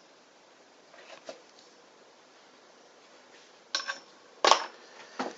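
A few light clinks and knocks: faint taps about a second in, then three sharper ones in the second half, the middle one the loudest.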